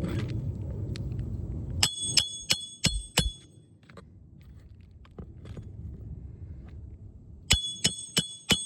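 Hatchet hammering a roofing nail into an asphalt shingle: a run of about five sharp, ringing metal strikes about two seconds in, and another run of about five near the end.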